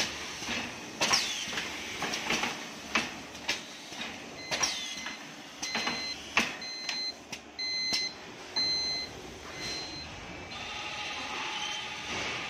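Automatic plastic blister edge-folding machine running, with irregular clacks and knocks from its moving folding parts. About halfway through, a run of short, evenly spaced electronic beeps sounds over it. Near the end the clatter gives way to a steadier whir.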